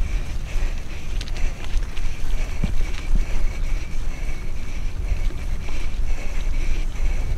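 Wind buffeting a helmet-mounted camera's microphone as a mountain bike rolls along a dirt and gravel trail, with tyre rumble and scattered small clicks and rattles from the bike.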